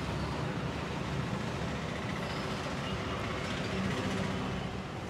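Steady rumble of road traffic, passing engines humming low, with a slight swell about four seconds in.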